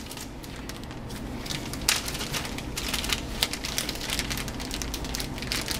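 Plastic anti-static bag crinkling in gloved hands as a processor is taken out of it, with irregular sharp crackles.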